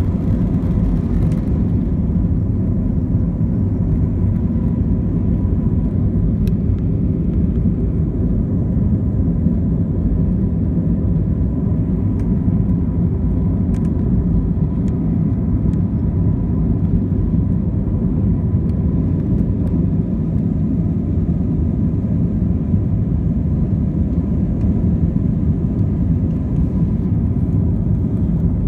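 Jet airliner engines at takeoff and climb power, heard inside the passenger cabin: a steady low rumble with a faint steady high tone above it.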